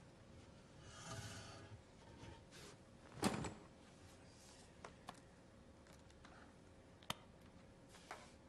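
Faint room sounds of a person moving about and settling at a laptop: a soft rustle about a second in, a single thump about three seconds in, then a few sharp clicks.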